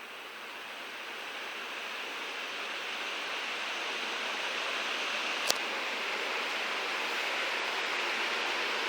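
1999 Venti-Delta Eco ceiling fan spinning up, a steady rush of air from its blades growing gradually louder. A single sharp click about five and a half seconds in.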